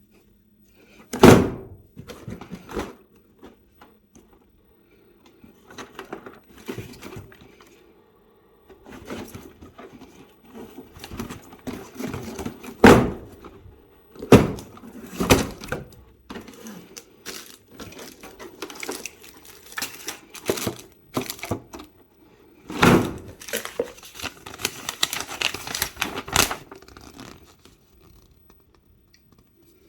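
Toy Uzi and its packaging being handled and unpacked: irregular rustling with a handful of sharp knocks of plastic, and a denser stretch of rustling and clatter in the second half.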